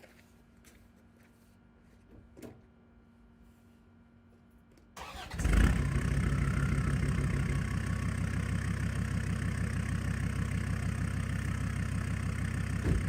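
Quiet at first with a single knock about two seconds in, then a Land Rover Discovery's diesel engine cranks and starts about five seconds in and settles into a steady idle.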